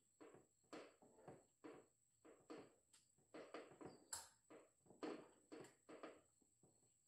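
Toyota Land Cruiser 100-series spare tire carrier hoist being cranked, winching the spare tire up under the truck. It makes a faint, uneven run of short scraping strokes, about two a second, with one sharper click a little past halfway.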